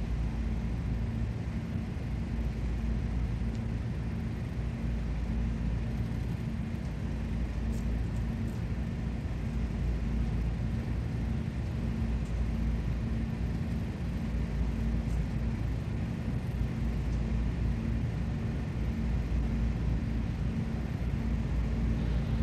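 Steady low rumble with a faint hum that pulses evenly on and off.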